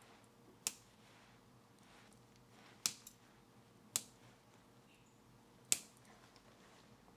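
Flush cutters snipping off the excess wire leads of freshly soldered capacitors on a transistor radio's circuit board: four sharp snips spaced a second or two apart.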